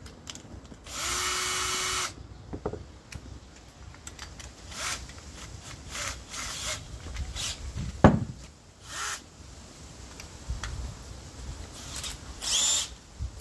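Power drill run in short bursts, about a second near the start and a briefer one near the end, with clicks and knocks of tool handling between, the loudest a sharp knock about eight seconds in.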